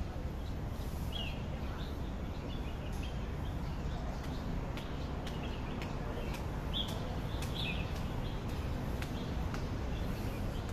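Small birds chirping in short, scattered calls over a steady background of low city noise.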